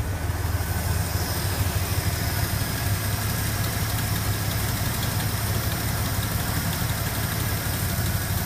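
AMC 232 inline six of a 1971 International Harvester Scout II idling steadily, freshly started, while its ignition timing is set by turning the distributor.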